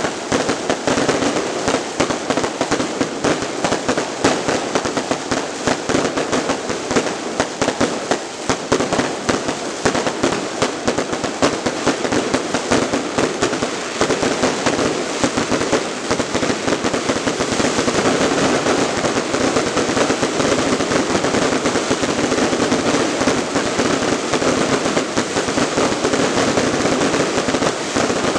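Fireworks display going off in a dense, unbroken barrage of rapid, overlapping bangs and crackles, growing even thicker past the middle.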